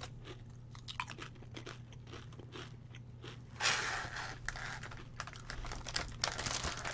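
Crunching and chewing of Tostitos Hint of Guacamole tortilla chips in the mouth, a series of crisp crackles. About three and a half seconds in, the chip bag rustles loudly for about a second as a hand goes into it, and the crunching goes on.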